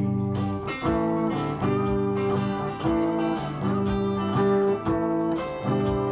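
Gold-top Les Paul-style electric guitar playing a 12-bar blues progression in a steady four count, alternating A and G chords, with band backing.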